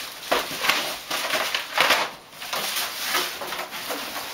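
A dog going after balloons: an uneven run of short, noisy scuffles and rustles, about two or three a second.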